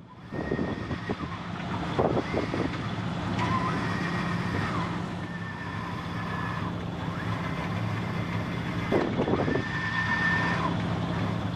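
Wind and rushing sea around a small sailboat sailing in strong wind and big beam seas, with a steady low hum under it. A higher whine comes and goes several times, and two splashes of spray come about two seconds in and near nine seconds.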